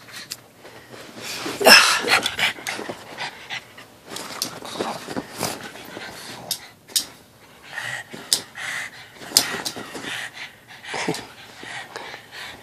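Two pugs panting hard in short irregular breaths as they play-wrestle, with the loudest burst about two seconds in.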